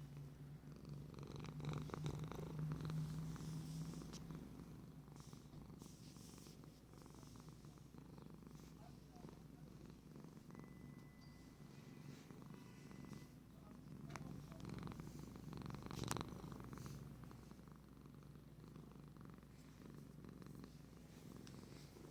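Canadian Sphynx cat purring steadily and contentedly, swelling louder a couple of seconds in and again briefly about sixteen seconds in.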